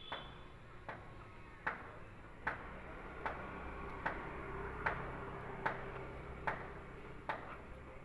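A regular series of sharp ticks, a little more than one a second, over a faint steady hum.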